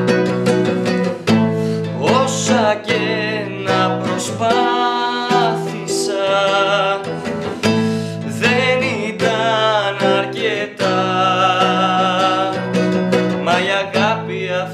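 Nylon-string classical guitar played with chords and sustained notes, with a man singing over it.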